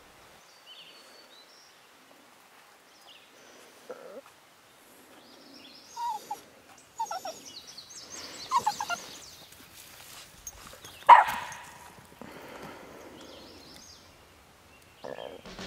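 A small dog barking a few short times during play with a stick, the loudest bark about eleven seconds in, with faint bird chirps early on.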